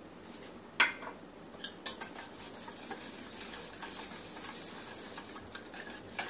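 A wire whisk beats a thick yogurt marinade in a stainless steel bowl: a fast, continuous rattle and scrape of wire against steel that starts about a second and a half in. A single clink comes just before it, a little under a second in.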